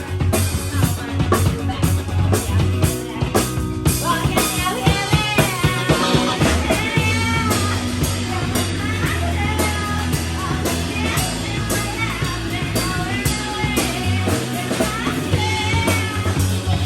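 Rock music with a drum kit and bass playing steadily, and a voice singing from about four seconds in.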